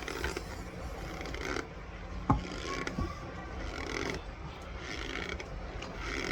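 Mouth noises of someone chewing a spoonful of raw cornstarch: short crunchy, squeaky bites about once a second, with one sharp click a little over two seconds in.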